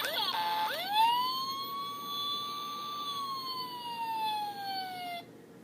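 Siren-like sound effect: a few quick up-and-down swoops, then one long wail that rises, holds, and slowly falls in pitch before cutting off suddenly about five seconds in.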